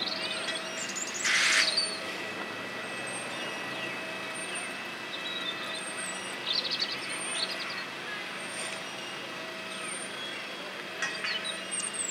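Steady outdoor hum with a few constant tones, broken about a second and a half in by a short loud hiss, with birds chirping now and then.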